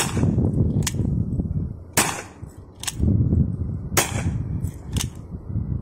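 Dipo P3 PCP air pistol, a 4.5 mm steel-BB single-action revolver, firing three shots about two seconds apart. Each shot is a sharp crack with a short ringing tail, and a lighter click falls between the shots.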